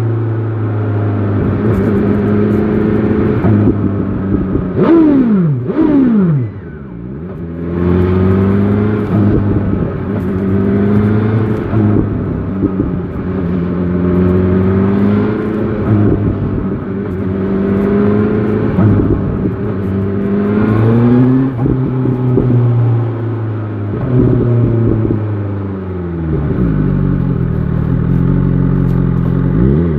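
BMW S1000 XR motorcycle engine pulling through the gears in city riding, its pitch rising and falling with the revs. About five seconds in there are two quick rev rises and drops, and the sound dips briefly after them.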